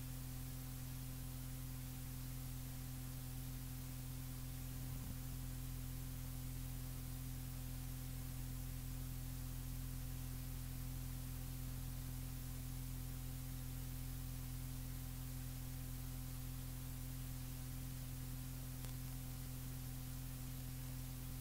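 Steady tape hiss with a constant electrical mains hum underneath and no speech: a blank stretch of a recorded tape playing.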